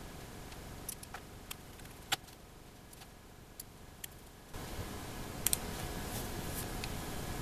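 Light scattered clicks and taps of a small screwdriver and tiny machine screws as a miniature limit switch is screwed onto a thin aluminium bracket. A steady low background noise comes up a little past halfway.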